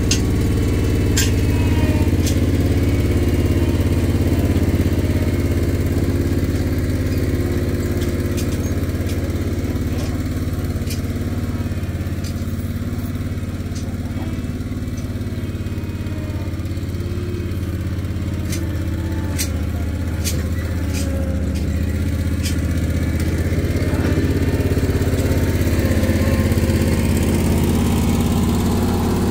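An engine running steadily at an even pitch, with scattered light clicks.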